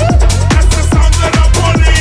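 Electronic dance music with a fast, steady kick drum hitting about four times a second, under short rising-and-falling synth tones.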